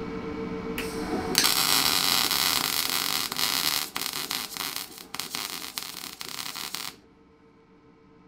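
Wire-feed welding arc crackling and hissing as a weld bead is run on a steel frame tube joint. A short burst comes about a second in, then a long run of about five seconds with a few brief breaks, and the arc cuts off suddenly near the end.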